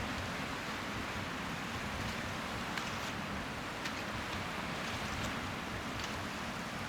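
Strong wind rushing over the microphone, a steady noisy hiss with gusty low rumbling, with small sea waves lapping faintly underneath and a few faint crackles.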